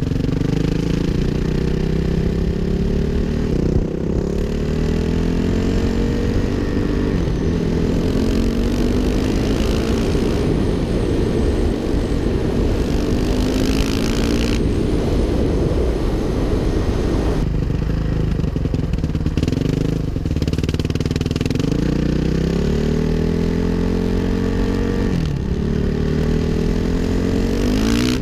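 Suzuki RM-Z 450's single-cylinder four-stroke engine being ridden hard, revving up and shifting through the gears, its pitch climbing and then dropping back several times, with a steady rush of wind noise.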